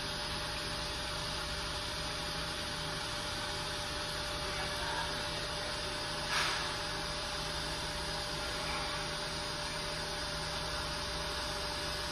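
Steady mechanical hum and hiss of room equipment, with a brief soft noise about six seconds in.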